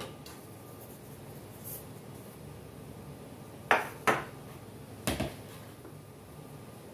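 Kitchenware clattering: a round metal baking pan knocked against the counter as it is dusted with flour, then a mixing bowl handled. Four short knocks come in two pairs, about halfway through and a second later.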